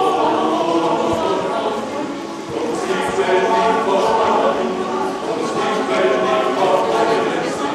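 Mixed choir of men's and women's voices singing together, holding long notes in several parts.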